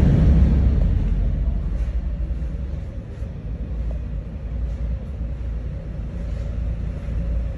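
Harley-Davidson V-Rod's V-twin engine running: loud at first, dying away over the first few seconds to a steady low rumble.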